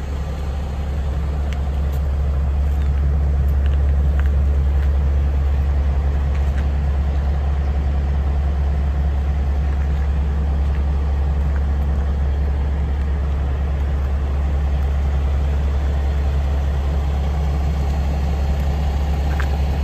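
The Cummins X15 inline-six diesel of a 2022 Peterbilt 389 idling, a steady low drone that grows a little louder a few seconds in.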